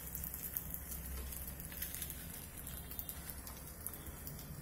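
Wheat-flour ada batter sizzling faintly on a hot dosa griddle, a steady hiss with light crackles.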